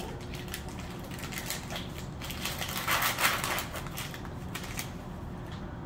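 Crinkling and crackling of a sterile paper-and-plastic peel pouch being opened and handled, with a louder rustle about three seconds in.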